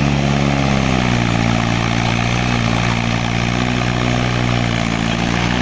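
Mahindra 575 DI tractor's four-cylinder diesel engine running steadily under load as it pulls a trolley heaped with sugarcane. Its pitch sags slightly about a second in, then holds.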